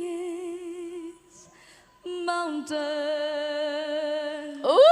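A woman's voice singing long held notes with a wavering vibrato, with no accompaniment heard. It breaks off for about a second, takes up another long note, and near the end swoops up to a higher, louder note.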